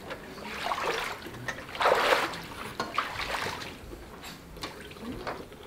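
Water splashing and streaming off as a person climbs out of a baptismal pool up a stepladder, in uneven rushes with the loudest about two seconds in.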